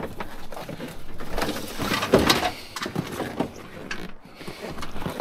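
Rummaging by hand through a bin of electrical scrap: plastic fittings, cables and a cardboard box being shifted, with a run of knocks, clicks and scraping.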